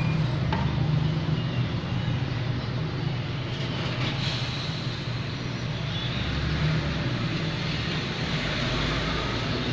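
Steady mechanical running noise: a continuous low hum under an even rushing sound.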